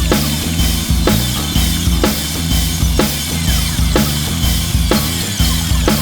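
Background music with a steady drum beat, about two hits a second, over a repeating bass line.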